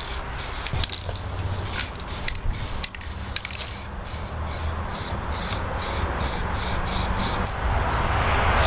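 Aerosol spray paint can hissing in a rapid series of short bursts, about three a second, stopping shortly before the end.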